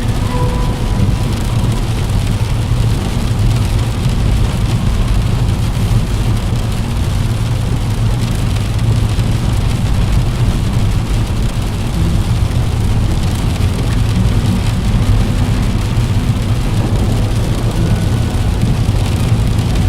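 Steady rain falling against a window pane, an even hiss of drops over a deep low rumble.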